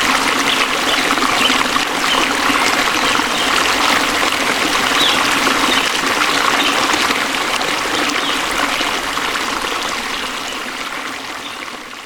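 Waterfall rushing and splashing, a steady dense hiss of falling water, fading out over the last few seconds.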